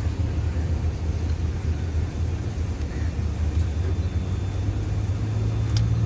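Vehicle engine running with a steady low rumble, heard from inside an open-sided passenger vehicle; the hum grows a little stronger about five seconds in. A single click near the end.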